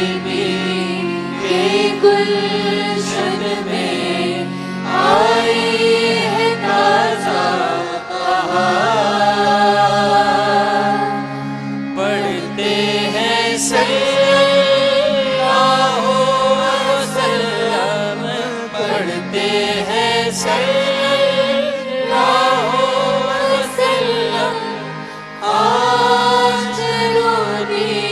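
A nasheed sung by voices alone: a male lead singer, then a female singer, trading gliding melodic lines over a steady low drone, with a choir joining.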